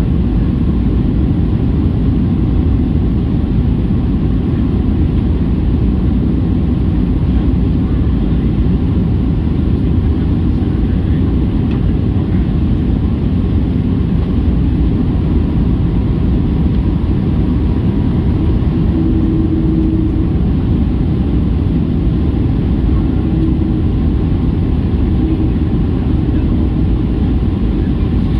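Steady cabin noise inside a Boeing 737-800 on its landing approach: a loud, even, low roar of its CFM56-7B engines and the rushing air around the fuselage.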